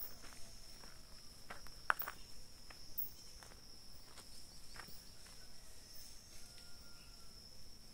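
Insects calling in one steady high tone, with a few short rustles and footsteps on leaf litter scattered through it.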